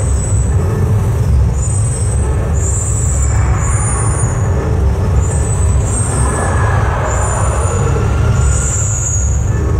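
Gas flame jets of an animatronic show firing in bursts with a rushing whoosh, over a loud continuous low rumble.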